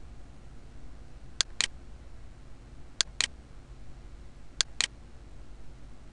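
Computer mouse button clicks: three clicks, each heard as a quick double tick, about a second and a half apart, over a steady low hum.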